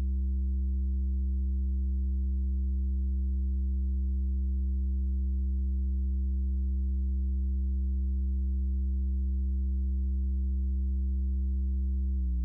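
Steady low synthesizer drone from a Doepfer A-110 VCO emulation in Softube Modular, patched straight to the output: one constant low pitch with a few overtones. Near the very end the pitch starts to bend slightly.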